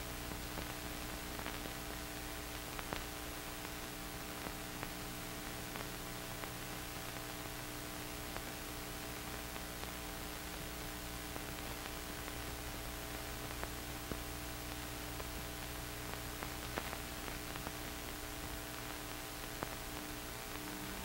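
Steady electrical hum and hiss with scattered faint clicks and pops: the background noise of an old film soundtrack transfer.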